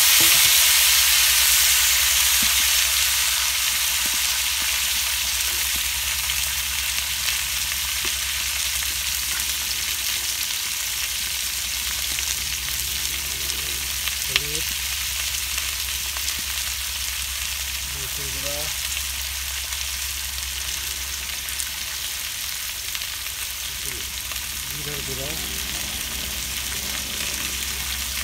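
Diced vegetables sizzling in hot oil in a black iron wok: a steady frying hiss, loudest at the start just after they went into the oil, slowly dying down.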